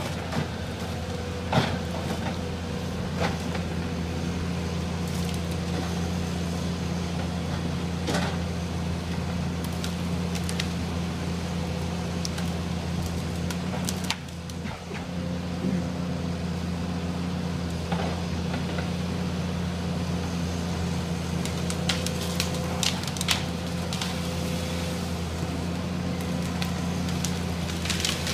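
SANY SY235C excavator harvester's diesel engine running steadily as its SP 761LF harvesting head works pine, with scattered sharp cracks of wood and limbs, more of them near the end.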